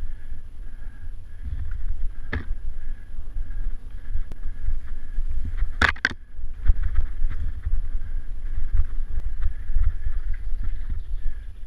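Mountain bike rolling fast down a dirt forest trail, with steady wind rumble on the microphone. The bike rattles and knocks over the bumpy ground: one sharp knock about two seconds in and a louder double knock about six seconds in.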